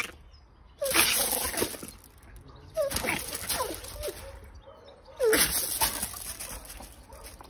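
A small puppy yapping in three short bouts about two seconds apart, each a few quick falling yips.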